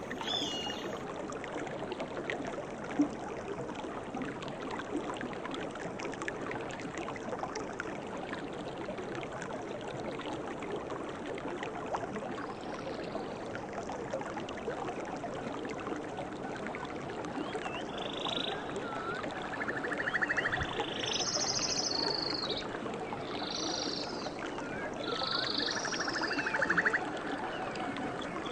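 Steady rush of flowing water. Birds chirp and call from about two-thirds of the way in, with a buzzy trilled call twice near the end, and there is a single sharp click about three seconds in.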